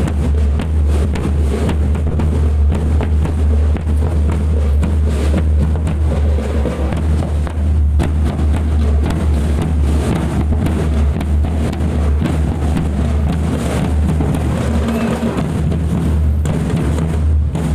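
School marching drum band playing: bass drums and snare drums beating a fast, dense rhythm over a heavy low drum boom.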